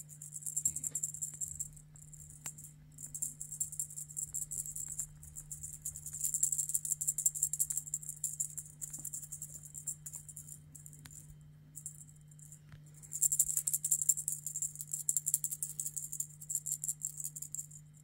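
Small jingle bells on a ribbon cat toy jingling as the toy is shaken and dangled, in uneven bursts of fine, high tinkling rattle with short pauses between.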